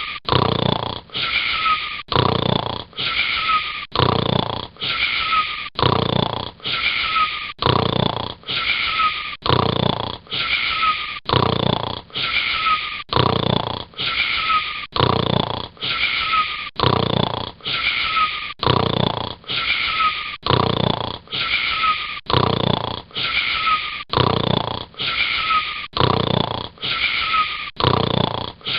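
Snoring in a fast, very even repeating pattern, about one breath a second, many of the breaths carrying a short falling whistle.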